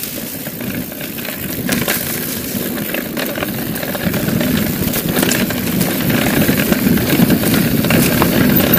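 Mountain bike riding fast down a dirt singletrack: tyres rumbling over the dirt and the bike rattling over bumps, with many quick clicks and knocks and rushing noise on the microphone. It grows louder in the second half.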